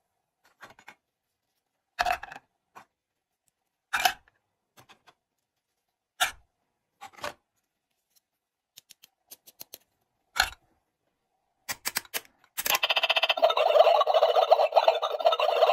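Plastic toy vegetables knock into a plastic toy pot one at a time, several separate knocks with light clicks of handling between. Near the end a continuous buzzing rattle starts and keeps going.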